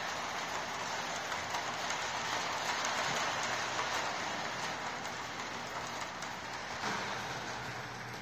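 Electric model train rolling along its track: a steady rushing clatter of metal wheels on the rails that swells a little as the lit passenger cars pass close by, around two to four seconds in.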